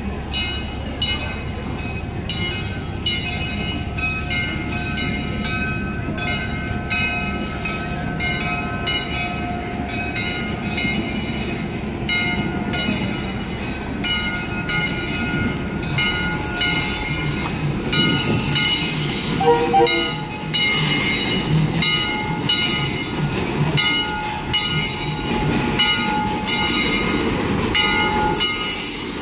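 Narrow-gauge steam locomotive pulling in, its exhaust chuffing with steam hiss, growing louder in the second half as it comes close.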